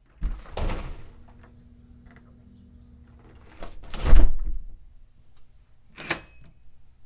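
Door lock and door handling sounds after a keypad lock's unlock beeps: a clunk near the start, a louder thud about four seconds in, and a sharp click about six seconds in.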